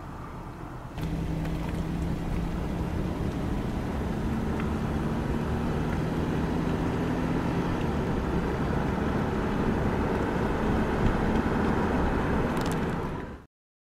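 Motor vehicle running: a steady low hum over rushing noise, which gets louder about a second in and then cuts off abruptly near the end.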